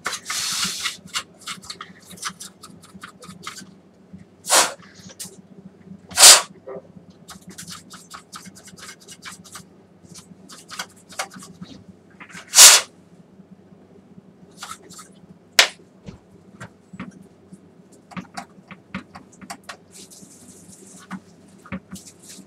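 Small clicks, taps and scrapes of tools and plastic parts as a dismantled BenQ MP515 projector is worked on by hand, over a low steady hum. About four short, loud hissing bursts break in, the loudest about six and thirteen seconds in, with a sharp click a little after.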